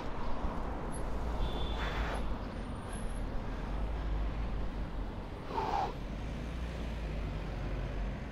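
Street traffic and a steady low rumble of wind and road noise heard from a moving bicycle riding alongside passing cars, with a couple of short puffs of sound.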